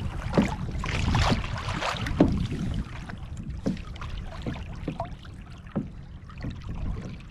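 Waves slapping and sloshing against a fishing kayak's hull in choppy wind-over-tide sea, with short sharp slaps about once a second, loudest in the first couple of seconds, over a low rumble of wind on the microphone.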